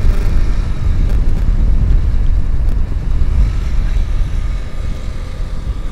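Motorcycle ridden at speed, heard from the rider's seat: wind buffets the microphone in a steady low rumble over the running engine.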